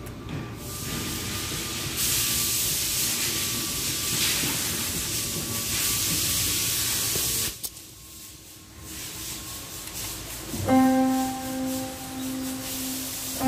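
A steady hissing noise that starts sharply, runs about five seconds and cuts off suddenly; about three seconds later, plucked acoustic guitar music comes in.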